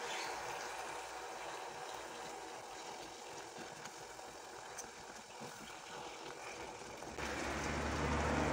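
Caramel syrup of melted sugar and water bubbling in a pot on a gas burner while a wooden spoon stirs it, with a steady hiss. About seven seconds in, the sound abruptly gets louder and a low hum comes in.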